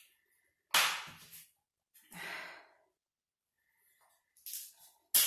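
Close-miked breathy exhales, like sighs, while she struggles to crack a king crab leg, followed by a few small clicks and a sharp crack near the end.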